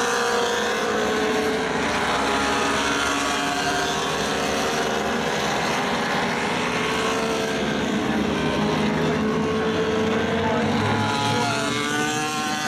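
MotoGP racing motorcycles' four-stroke engines passing one after another, their notes rising and falling as the riders brake, shift and accelerate through the corner.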